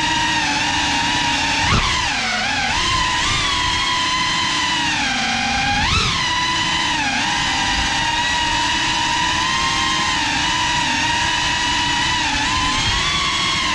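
Whine of the brushless motors and propellers of a GEPRC Cinelog 35 cinewhoop drone in flight, its pitch rising and falling with the throttle. A short knock with a dip in pitch comes about two seconds in, and a quick rise and fall in pitch about six seconds in.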